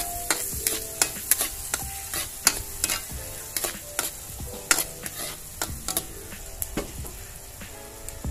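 Chopped garlic and onion sizzling in butter in a metal wok while a metal ladle stirs them, its edge clicking and scraping against the pan at irregular intervals.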